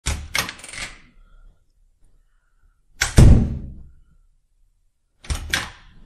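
Door sound effects: a quick run of latch and handle clicks, then about three seconds in a door shutting with a heavy thud, the loudest sound, and near the end two more sharp latch clicks.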